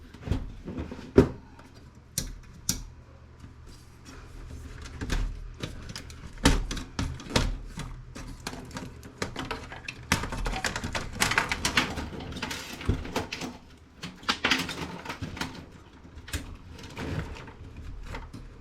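Clicks, knocks and rattling from desktop computer parts being handled and pulled apart by hand as the drives and their cables come out of the case: irregular sharp taps, with a stretch of scratchy rattling about ten seconds in.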